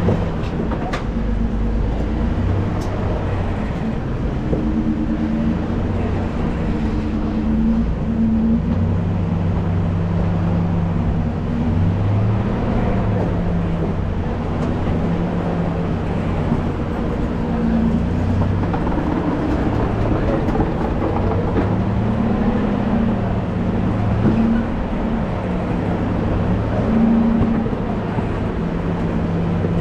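Off-road vehicle engine running at low revs, its pitch rising and falling every few seconds as the throttle is worked.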